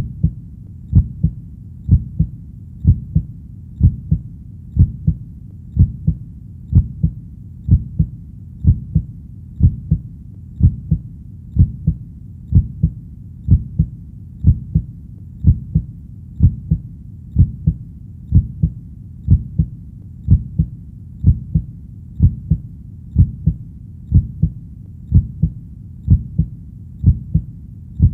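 Heartbeat sound: a slow, steady lub-dub, each beat a low double thump, repeating about once a second (around 64 beats a minute).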